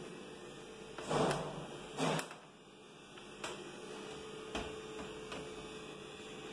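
Kitchen cabinet door being handled: two knocks about a second apart, then a few light clicks, over a steady low hum.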